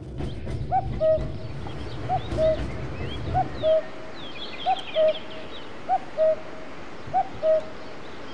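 A bird repeating a two-note cooing call, a short arched note followed by a slightly lower flat one, about once every second and a quarter, with higher chirps from other birds around the middle. A low rumble underneath stops about a third of the way in.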